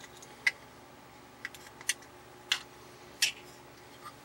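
About half a dozen sharp clicks and taps, spaced irregularly, as a television focus coil is worked and pried by hand inside its metal housing.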